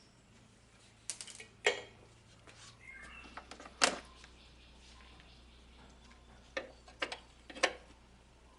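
Irregular sharp metallic clicks and knocks of hand work with a wrench on a car horn and its mounting, in two clusters with the loudest knock about four seconds in.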